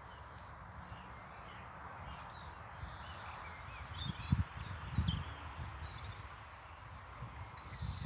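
Songbirds chirping and calling over faint outdoor hiss, with a few low rumbles on the microphone about four to five seconds in.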